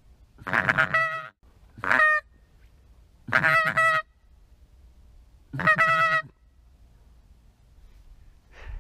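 Loud, nasal, duck-like quacking calls close by: four of them, each lasting about half a second, one to two seconds apart, with a softer short call near the end.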